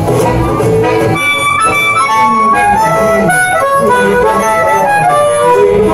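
Two harmonicas playing a boogie-woogie tune together over a low rhythmic backing, with notes bent up and down near the end.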